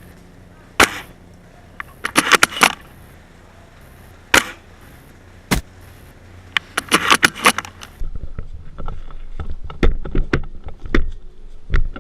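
Airsoft replica fire: single sharp cracks and quick bursts of several shots, followed near the end by scrapes, knocks and rustling of gear being handled.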